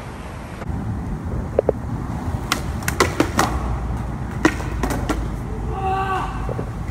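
Skateboard clattering on concrete as a skater bails: a handful of sharp knocks of the board and wheels hitting the ground, the loudest about four and a half seconds in, over a steady low rumble.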